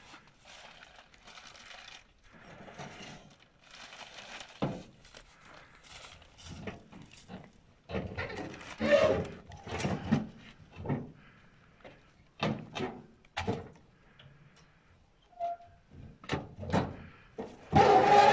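Irregular knocks, thuds and scrapes of a patpat walking tractor being manhandled up a ramp of loose wooden planks into a small truck. The engine is not running. Near the end the knocking gets louder and comes with short voice sounds from the men straining.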